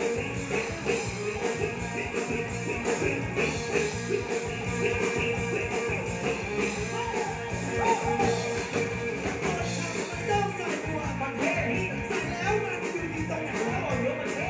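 A live rock band playing: drums keeping a steady beat under electric guitar, with a man singing into a microphone.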